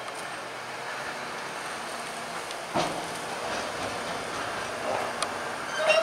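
Diesel engines of a New Holland T7 tractor and a JCB 435S wheel loader running steadily while a tipping trailer unloads maize silage, with one sharp loud knock about three seconds in and another clunk near the end.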